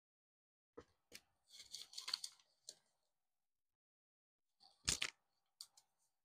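Paper crinkling and rustling in the hands as a folded paper leaflet and sticker strip are handled: a couple of short crackles, a longer crinkle around two seconds in, and the loudest rustle about five seconds in.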